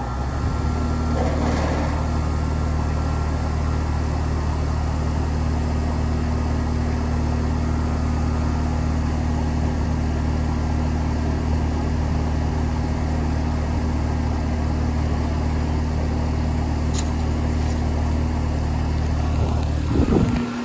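Carrier Sentry 3.5-ton air conditioner condensing unit starting up and running: a steady deep hum from the Copeland scroll compressor under the steady rush of the Broad-Ocean condenser fan. Near the end there is a short knock, after which the deepest part of the hum drops away.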